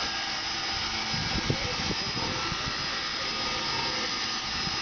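Steady hissing and rumbling noise, typical of a standing steam locomotive under steam, with faint voices underneath.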